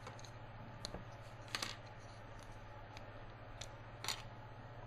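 A few faint, sharp clicks of small plastic model-kit parts being handled and fitted, over a steady low hum.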